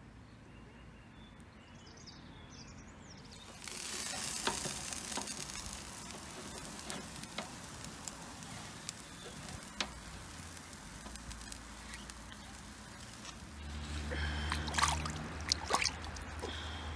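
After a quiet start, skewered chicken sizzles over a charcoal grill from about four seconds in, a steady hiss with occasional crackles and pops. Near the end, flowing stream water splashes as a knife is rinsed in it.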